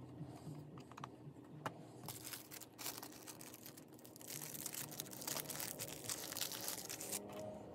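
Craft materials handled on a desk: a few light knocks as tools are set down, then from about two seconds in a dense crinkling and rustling that stops about seven seconds in.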